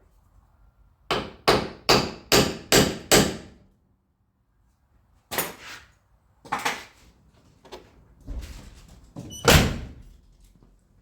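Hammer tapping a car door's strike plate to shift it down: six quick sharp raps, then after a pause a few more knocks and one heavier thunk near the end.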